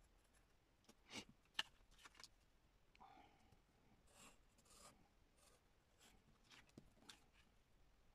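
Faint pencil scratching and light taps and rubs of playing cards and paper on a cutting mat, with a few small clicks, the sharpest about a second and a half in.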